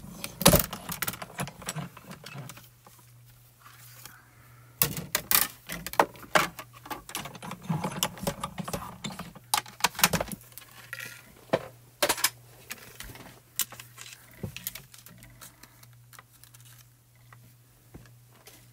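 Clear acrylic cutting plates and a thin metal etched die clicking and clattering as they are stacked, fed through a die-cutting machine and taken apart again, with many sharp irregular knocks that thin out towards the end.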